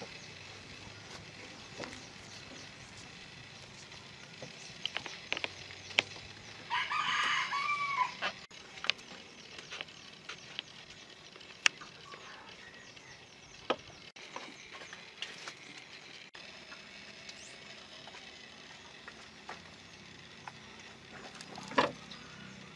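A rooster crows once, about seven seconds in, a loud call lasting just over a second that ends in a falling glide. Otherwise a low background with scattered small clicks and taps.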